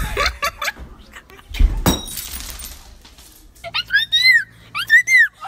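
A loud crash with a shattering, clattering tail about two seconds in, after some knocks. Then comes a run of short, high-pitched squeals, each rising and falling.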